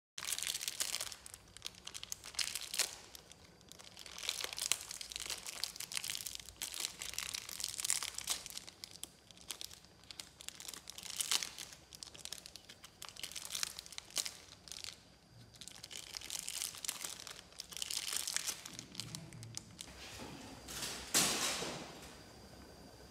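Plastic candy wrapper crinkling and rustling in repeated bursts as a baby monkey pulls and handles a wrapped lollipop, dying down near the end.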